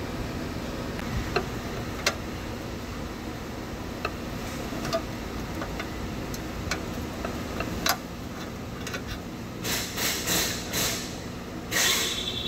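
Metal hand tools, a pick and long pliers, clicking against the engine's oil cooler while working at its seal, over a steady low hum. A few sharp clicks come singly, then several louder rasping scrapes near the end.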